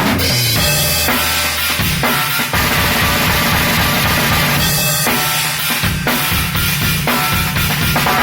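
Drum kit played at a studio sound check: a fast, dense run of bass drum and snare strokes with cymbals, at a loud, steady level.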